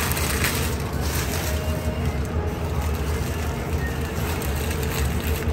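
Aluminium foil crinkling and rustling as a large burrito is wrapped by gloved hands, over a steady low hum.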